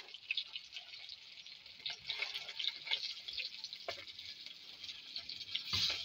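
Parrotfish pieces frying in hot oil in a steel wok, with irregular crackling and spitting. Near the end comes a louder knock as a utensil works in the pan.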